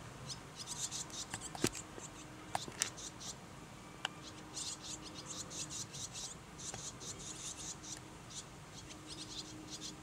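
Fledgling barn swallows twittering in rapid clusters of short, high chirps: the begging calls of young birds being fed by their parents.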